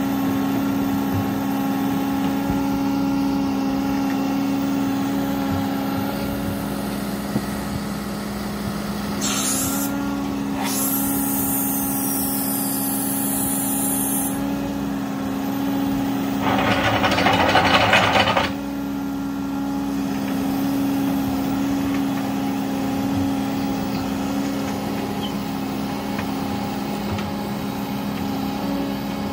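Menzi Muck M535 spider excavator's diesel engine running at a steady speed while the machine works its boom and legs. A high hiss comes in for a few seconds near the middle, and a louder, harsh rushing noise lasts about two seconds a little later.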